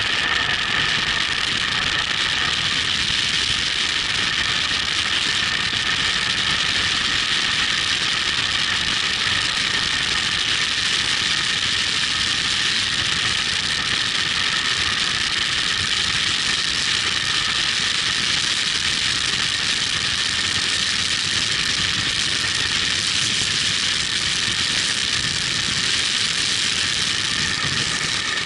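Steady rush of wind and tyre noise from a vehicle running fast downhill on asphalt, heard from the onboard camera.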